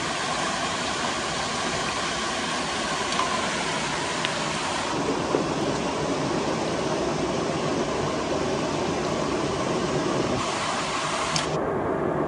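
Steady rush of a small waterfall pouring into a river pool, an even constant hiss; its higher part drops away abruptly near the end.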